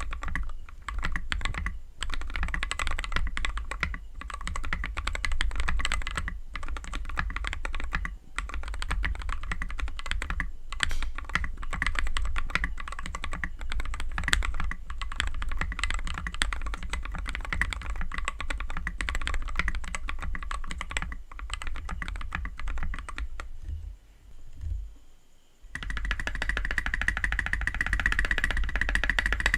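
Steady fast typing on a Tofu 60 mechanical keyboard fitted with Akko CS Matcha Green linear switches lubed with Krytox, on an aluminium plate with case foam. The typing breaks off about 24 s in, then resumes near the end as a denser, sharper clatter of the modifier keys.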